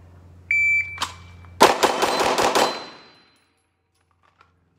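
A shot timer's start beep, then six rapid shots from a 9mm Glock 45 MOS pistol fired in about a second: a Bill drill from the draw, timed at 2.05 seconds from beep to last shot.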